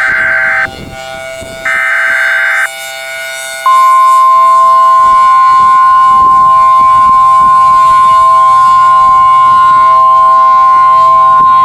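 Emergency Alert System alert tones: the last of the SAME header data bursts, harsh one-second screeches about a second apart, then about four seconds in a very loud, steady single-pitch attention tone that starts and holds.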